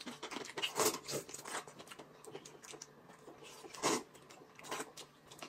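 Quiet eating sounds: people eating noodles with chopsticks, with short scattered slurps and mouth noises, the loudest about four seconds in.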